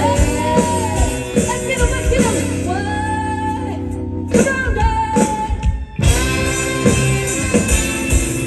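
A rock band playing with a woman singing long, gliding held notes. The music thins briefly about four seconds in and again near six seconds.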